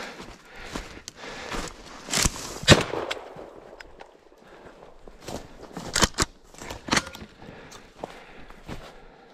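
Footsteps crunching through snow and brush, broken by several sharp knocks. The loudest knock comes about three seconds in, and more follow near six and seven seconds.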